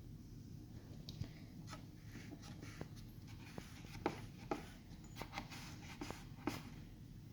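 Sockets from a socket set being handled: about a dozen light, separate clicks and clinks, a few ringing briefly like metal.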